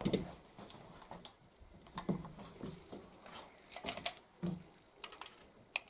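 Scattered light clicks and knocks of an AR-15 rifle and its magazines being handled; no shots are fired.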